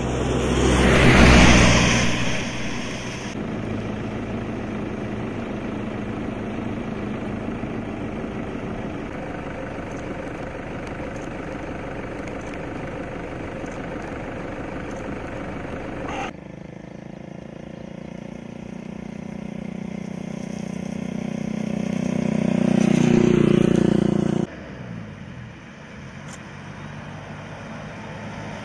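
Road traffic: motor vehicles passing. One loud pass-by comes about a second in, and another builds up near the end and cuts off abruptly, with steady traffic noise between.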